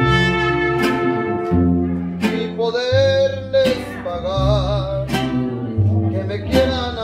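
Mariachi band playing live: violins carry a held, wavering melody over strummed guitars and the deep bass notes of a guitarrón.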